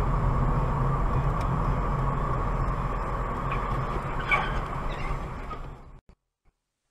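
Steady engine and road noise of a moving car, heard from inside the cabin through a dashcam, with a short knock about four seconds in. The sound cuts off abruptly about six seconds in.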